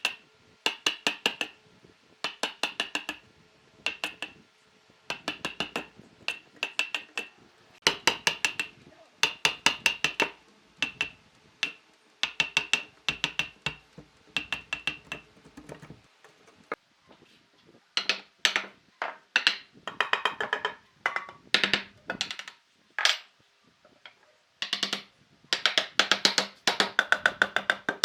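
Quick bursts of sharp tool strikes on wood, several hits to a burst at about one burst a second, ringing in the first half and duller after a short pause midway.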